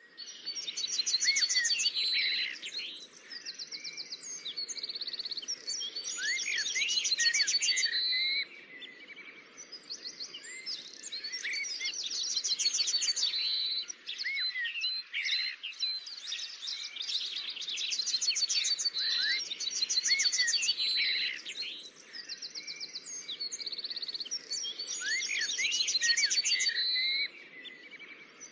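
Birdsong: several birds chirping, whistling and trilling together, with a loud, rapid trilling phrase coming back about every six seconds.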